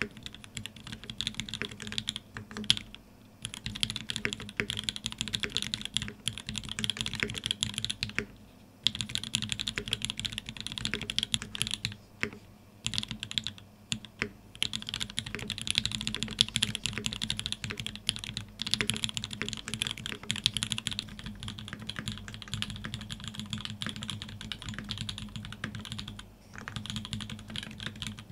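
Fast typing on an ORI CLS-2//65 custom mechanical keyboard fitted with lubed Tangerine linear switches, TX switch films, a brass middle plate and GMK keycaps: a dense run of key clacks with a few short pauses.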